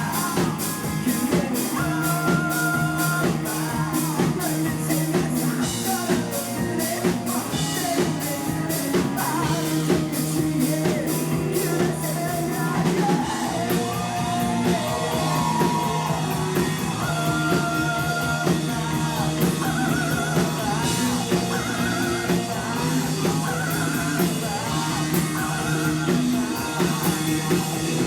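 Live rock band playing: a drum kit keeping a steady beat under electric guitar and bass, with singing at times.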